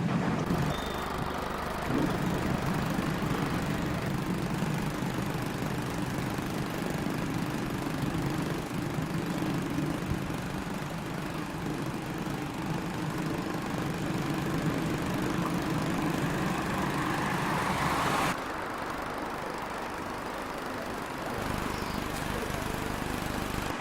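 Heavy vehicle engine running steadily, building up near the end before the sound cuts abruptly to a quieter engine noise.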